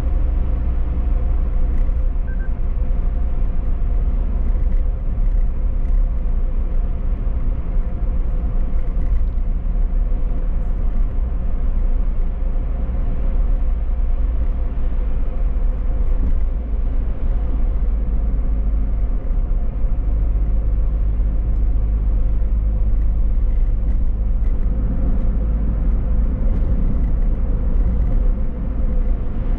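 Car being driven: a steady low rumble of engine hum and road noise.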